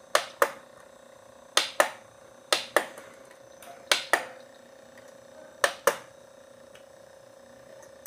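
Remote-control buttons pressed five times, each press a sharp double click of press and release, as the VCD menu is paged through, over a faint steady hum.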